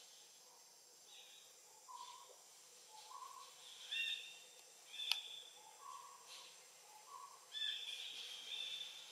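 Faint animal calls: a low two-note hoot, the second note higher, repeated four times, and higher thin calls about four and five seconds in, with a longer run of them near the end. A single sharp click sounds about five seconds in.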